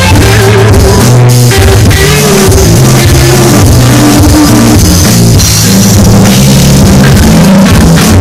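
Live band playing loud rock-style music: a hollow-body electric guitar over a bass line and a drum kit.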